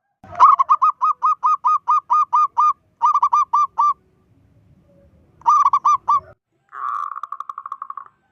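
Zebra dove (perkutut) calling: fast runs of short, clear cooing notes, about five a second, in three bursts with short breaks, then a rougher, buzzier rattle of notes near the end.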